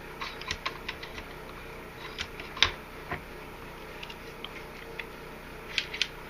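Small metal clicks and clacks as a Ruger Mark III pistol's bolt is worked into the receiver during reassembly. The clicks are irregular, with one sharper clack about two and a half seconds in and a quick cluster of clicks near the end.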